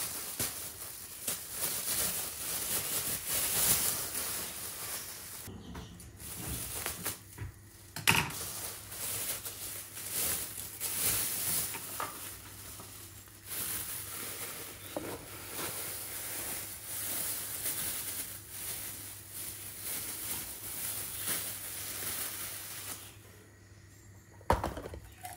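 Dry, granular tarhana poured from a plastic bag into a plastic storage container: a steady rustling hiss of grains sliding and pattering, with the bag crinkling and a few short breaks.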